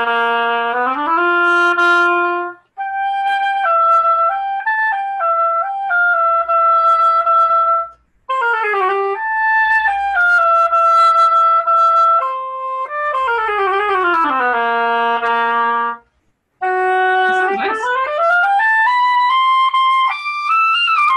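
Oboe played in four slurred phrases with short breaks between them, beginning on a low held note. It moves through runs and held notes and ends in a long upward sweep.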